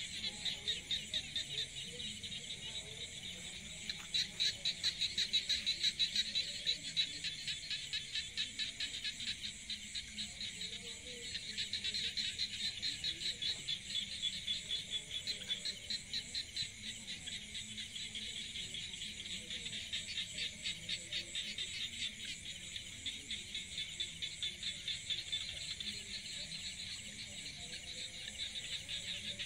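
A chorus of insects trilling in a rapid, even pulse that swells and fades in waves.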